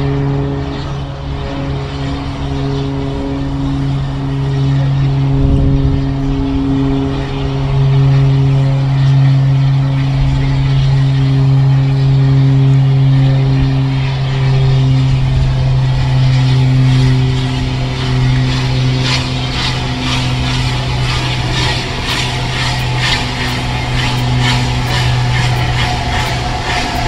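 Steam locomotive approaching along the line with a steady low drone throughout. In the last third there is a run of sharp beats, a few a second.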